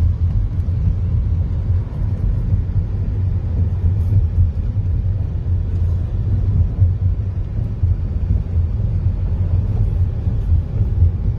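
A car driving, heard from inside it: a steady low rumble of engine and road noise.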